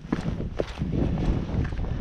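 Footsteps of a hillwalker's boots on a rocky, snowy mountain ridge: several uneven knocks and scrapes, with a low wind rumble on the microphone.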